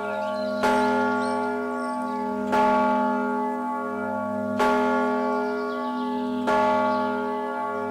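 A single church bell tolling, struck four times about two seconds apart, each stroke ringing on with a low hum note into the next.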